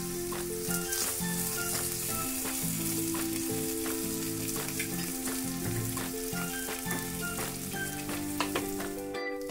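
Masala-coated small fish shallow-frying in a little oil in a non-stick pan: a steady sizzle with frequent small crackles, and a spatula scraping and nudging the fish at the start. The first side is nearly done and ready to turn. Soft background music with held notes plays under it.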